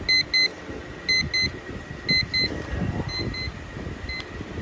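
Pearl quartz travel alarm clock's electronic alarm beeping: high-pitched short beeps in pairs, about one pair a second. The first three pairs are loud, the fourth is fainter, and a single short beep follows near the end.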